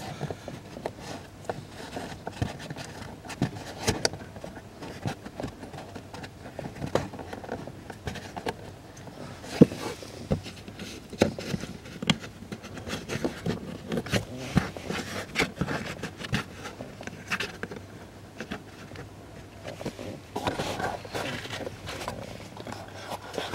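Hands screwing plastic twist fasteners into a car's footwell trim panel and working the carpet back into place: irregular small plastic clicks and knocks amid scraping and rustling of carpet and trim.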